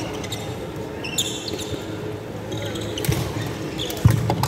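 Badminton rally: shuttlecock hits with racket clicks, and shoes squeaking on the wooden court floor, echoing in a large sports hall. The loudest sound is a heavy thud a little after four seconds, as a player lunges low for the shuttle.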